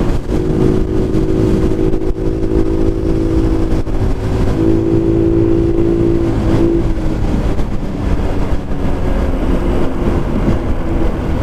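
Scooter engine running at a steady cruise, its pitch rising a little in the middle, under heavy wind buffeting on the microphone.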